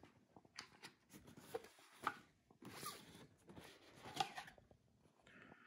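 Faint rustling and scraping of cardboard model-train boxes and paper packing being handled, with scattered light clicks and knocks at irregular moments.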